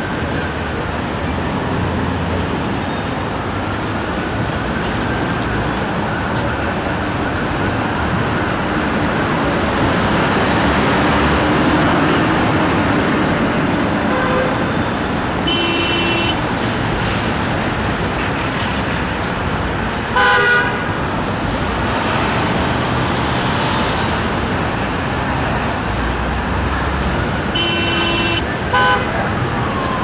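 Dense city street traffic: a steady rumble of engines and tyres, with car horns honking several times, the loudest about two-thirds of the way through.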